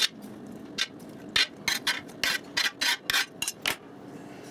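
Kitchen knife blade scraping and tapping on a plastic cutting board as diced onion is swept off into a bowl: a quick, uneven run of about a dozen short strokes that stops almost a second before the end.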